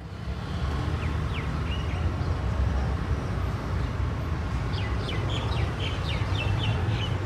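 Outdoor ambience with a steady low rumble, and small birds chirping: a couple of chirps about a second in and a quick run of chirps a little past the middle.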